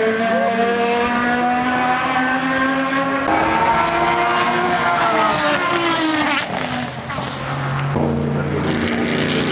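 Endurance race cars running at speed on the circuit, several engine notes overlapping. About halfway through one car sweeps past, its note rising then falling with a rush of air. The sound changes abruptly twice.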